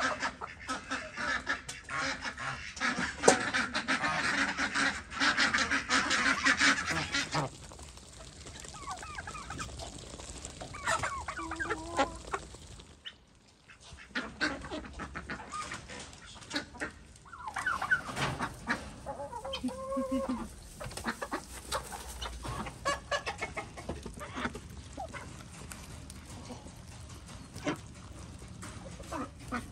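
Flock of domestic geese and ducks calling loudly and densely as grain is thrown to them. After a brief break about halfway through, chickens clucking in scattered calls while pecking at feed.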